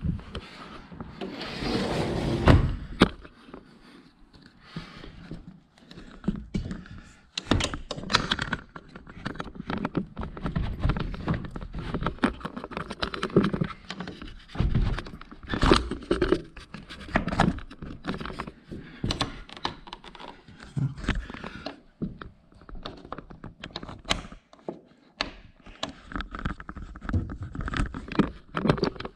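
Irregular knocks, thunks and scrapes of hands working at a sliding patio door's metal frame and an add-on double bolt lock, with a longer scraping rush in the first few seconds.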